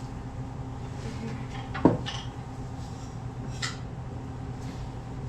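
Knock and clink of handled gear: one sharp knock about two seconds in and a lighter clink near four seconds, over a steady low hum.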